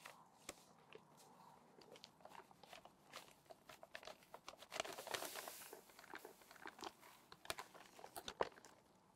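Paper sack of dry mineral filler crinkling and rustling as the powder is poured from it into a plastic bucket, with scattered sharp crackles and a longer hiss of pouring powder near the middle.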